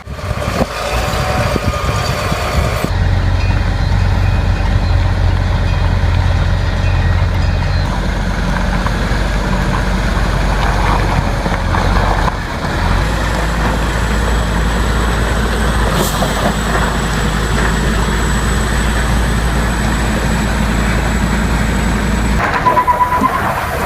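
Heavy diesel truck and machinery engines running, a steady low rumble that shifts in pitch a few times, with a brief high tone near the end.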